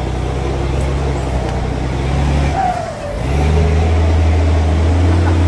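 Mitsubishi Fuso truck's turbo diesel engine pulling under load, a loud steady low drone. About halfway through it dips briefly, with a short falling turbo whistle, then pulls again louder.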